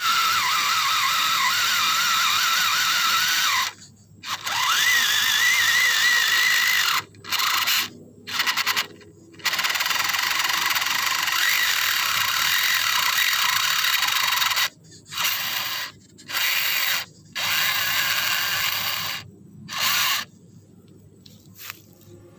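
Motor and gear train of an MN-series RC crawler whining and grinding as its stripped 8-tooth pinion gear slips on the spur gear, so the wheels do not drive the truck out of the rut. The whine comes in throttle bursts of one to five seconds with short gaps between them.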